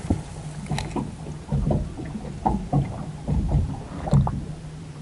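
Small waves lapping against the hull of a small moored boat: irregular low slaps and knocks every fraction of a second over a steady low hum.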